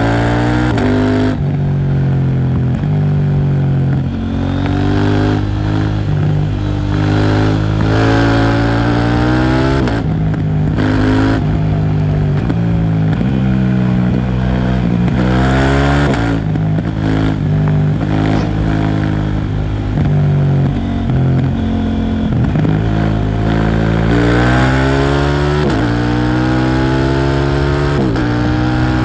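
KTM Duke 790's parallel-twin engine through a Leo Vince exhaust, ridden at full pace. The revs climb again and again through the gears, dropping at each upshift, fall away when the throttle closes for slowing, then climb once more.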